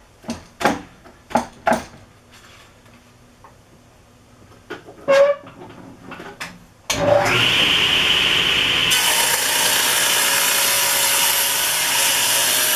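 A few sharp knocks and clicks of wood and metal being handled, then about seven seconds in a table saw starts suddenly and runs steadily. About two seconds later the sound turns hissier as the blade cuts along a pallet board clamped in a sliding jig, squaring its edge.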